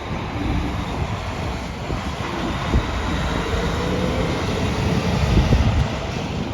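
Steady low rumble of highway traffic, growing a little louder toward the end.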